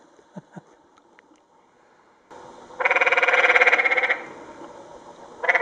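Canyon tree frog calling: a loud trill of rapid pulses lasting just over a second, about halfway through, with a second trill starting near the end. It is the male's mating call.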